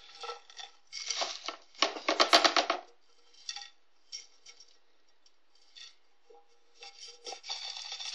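Slightly dry pipe tobacco being shaken and tapped out of a metal tin into a plastic tray: bursts of rustling and rattling with clinks and knocks of the tin, and scattered single taps between the bursts.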